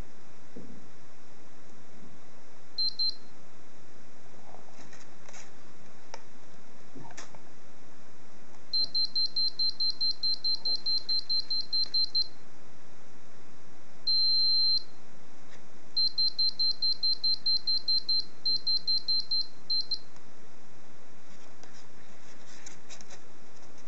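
A homemade PIC24-based electronic components tester beeping at one high pitch. It gives a quick double beep, then a run of rapid short beeps at about six a second, a single longer beep, and another rapid run. Faint stylus taps on its touchscreen can be heard between them.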